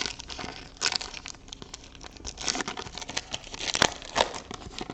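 Foil trading-card pack wrapper crinkling and tearing as it is opened, in a run of irregular crackles with louder bursts about a second in, midway and near the end.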